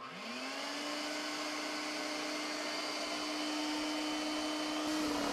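Shop vac motor spinning up with a rising whine that settles into a steady running tone, over the blower of a running heat gun. Just before the end another motor starts in with a lower hum.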